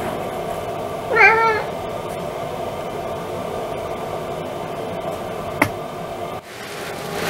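A domestic cat gives one short meow about a second in, over a steady background hum. A single sharp click comes a few seconds later.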